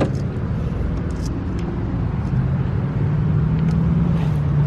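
Car running: a steady low rumble of engine and road noise, with an engine hum coming in about halfway through.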